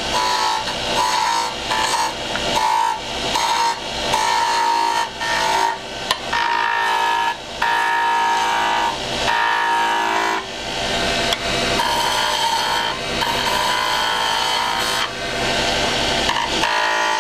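Skew chisel cutting a spinning wooden spindle on a lathe: a series of short cuts, each a scraping hiss with a high ringing tone, broken by brief pauses as the tool is lifted and moved, while a V groove is cut and a bead is rolled.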